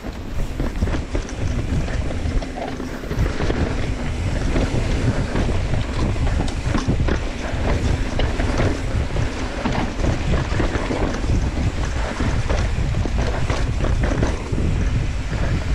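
Wind rushing over the microphone of a camera on a mountain bike riding fast down a dirt trail, with tyres rolling over the dirt and frequent small knocks and rattles from the bike over bumps and roots.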